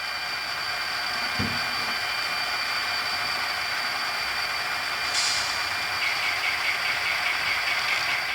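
Model railroad diesel locomotives' sound-decoder engines idling steadily, with a soft thump about a second and a half in. About five seconds in a short hiss starts, then a fast, even rattle joins as a freight train approaches.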